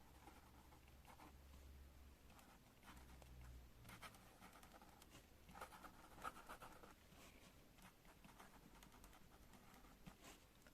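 Pen writing on paper: faint, short scratching strokes, densest in the middle, with a couple of sharp ticks near the end.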